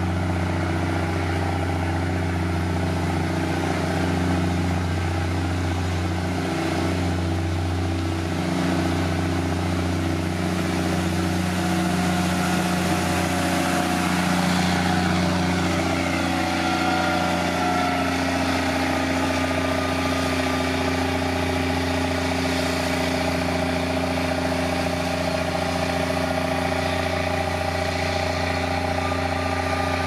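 Diesel engine of heavy road-construction machinery running steadily at a constant pitch.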